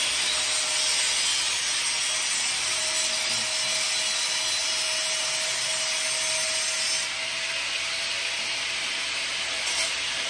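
Power tool running steadily: a continuous hiss with a faint steady whine, easing slightly about seven seconds in.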